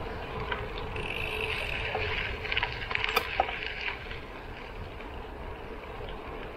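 Gravel bike tyres rolling over a gravel road, with a steady low rumble from wind on the microphone. Between about one and four seconds in there is a stretch of crackling clicks.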